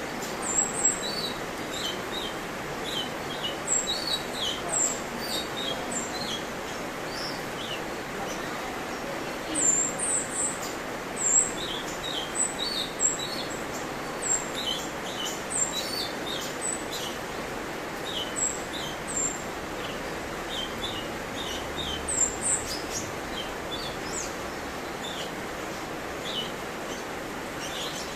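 Cucak cungkok singing a varied song of short, high chirps and whistled notes in quick clusters, over a steady background hiss.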